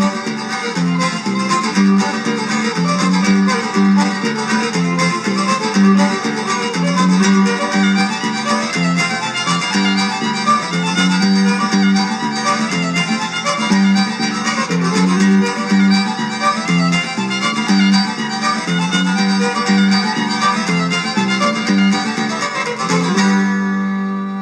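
Fiddle playing a fast reel over guitar accompaniment with an alternating bass. Near the end the tune stops and the last low notes ring out and fade.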